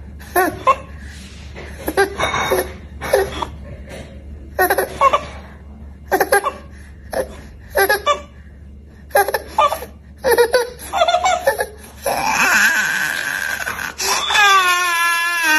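A baby laughing in short repeated bursts, then breaking into a long, wavering cry near the end.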